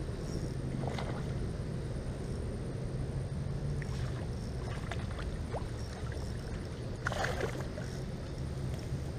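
A hooked bass splashing and thrashing at the surface as it is reeled to the bank. The loudest splash comes about seven seconds in, as the fish is lifted out of the water. A steady low hum lies underneath.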